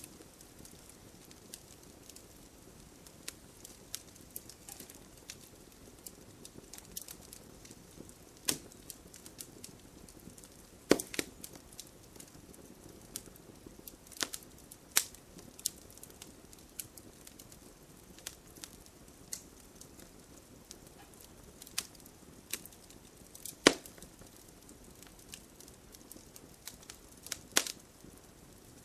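Wood fire crackling, a soft steady hiss broken by irregular sharp pops, a few of them much louder than the rest.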